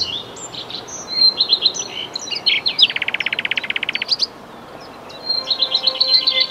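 Songbirds chirping and warbling in quick high notes, with a fast, dry trill about three seconds in that lasts about a second; faint music tones come back in near the end.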